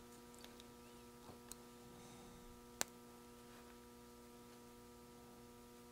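Near silence: a faint, steady electrical hum, with a few light ticks and one sharp click nearly three seconds in.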